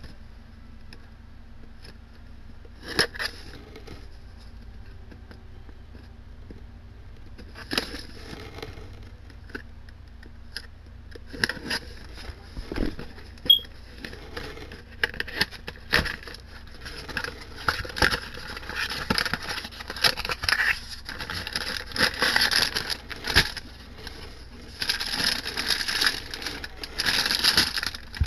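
Hands handling and opening a cardboard figure box: scattered taps and scrapes at first, then a busier stretch of rustling and crinkling that grows loudest near the end as the clear plastic packaging is handled.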